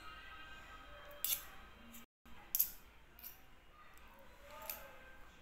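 Spoon and fork scraping and clinking against a plate of rice, a few separate sharp clicks spread out, with the sound cutting out for a moment about two seconds in.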